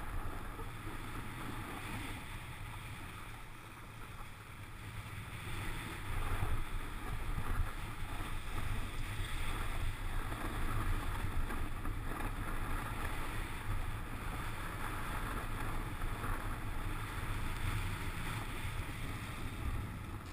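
Wind rushing over a helmet-mounted GoPro Hero2 together with the steady hiss and scrape of a snowboard sliding slowly over groomed snow, a continuous rumble that grows a little louder about six seconds in.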